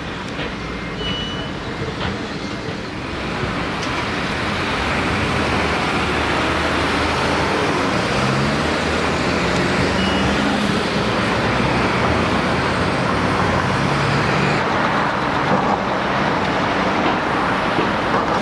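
Steady road traffic noise: tyres and engines of passing vehicles, getting louder a few seconds in, with a low engine drone through the middle.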